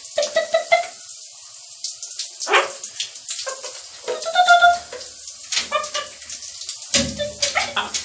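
Blue-and-gold macaw giving several short calls, the loudest about halfway through, with scattered sharp clicks between them.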